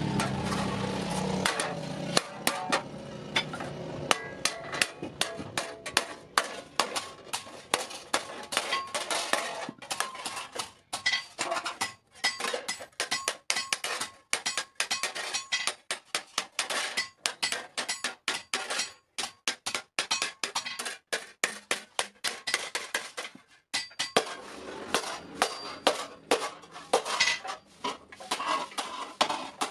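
Hand hammer striking a thin round iron disc on an anvil, beating the freshly cut blank flat: a long run of sharp, ringing metal strikes, roughly three a second, with a few brief pauses.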